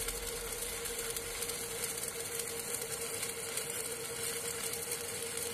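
Electric arc welding on a loader bucket's steel cutting edge: the arc gives a steady crackling hiss, with a steady mid-pitched tone running beneath it.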